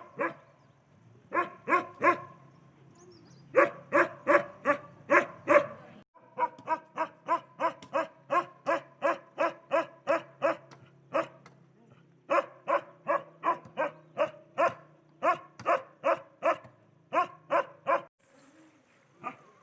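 A dog barking over and over at about two barks a second, in four runs broken by short pauses, then a single bark near the end.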